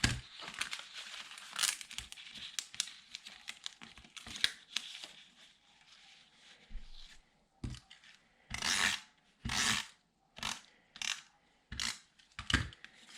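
Paper and cardstock being handled and pressed into place: light rustling and crinkling, then a run of about six short, louder paper strokes in the last five seconds.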